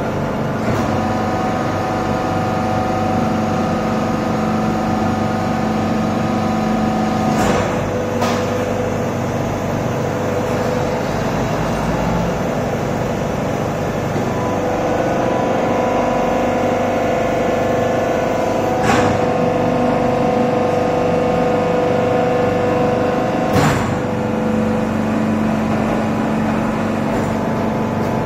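Hydraulic power pack of a 300-ton deep drawing press running through a pressing cycle: a steady machine whine whose pitch and strength shift a few times as the ram travels and takes the load. A few sharp clacks are spread through the cycle.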